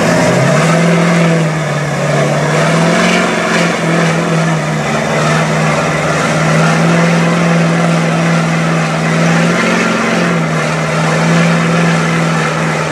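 Giant tractor-tyred mud truck's engine running hard under load as it pulls the weight sled, holding a steady high pitch with slight dips about a second in and near ten seconds.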